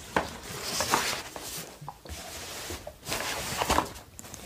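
Hands handling a small cardboard box and its packaging: rustling, scraping and light taps in short bouts with brief pauses.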